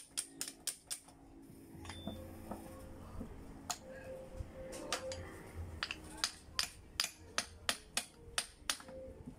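Rapid metal taps, a hammer tapping at the top of an Isuzu C240 manual transmission's mainshaft to work the gears loose. The taps come about five a second at first, stop for about a second, then resume more slowly. A faint low hum sits underneath from about two seconds in.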